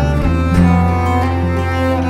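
Background music: long held notes that change about every half second to a second over a deep, steady bass line.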